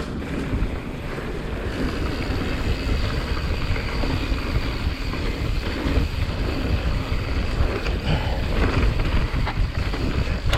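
Wind rumbling on the microphone and knobby tyres rolling over a dirt trail as a mountain bike is ridden, with scattered short clatters.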